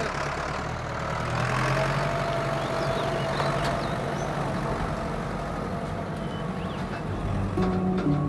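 Pickup truck engine running steadily as the truck pulls away and drives along the village road. Music comes in near the end.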